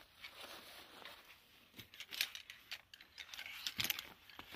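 Folding camping chair being pulled from its fabric storage bag: rustling of the bag, with a few sharp clicks and light rattles of the chair's frame poles from about halfway through.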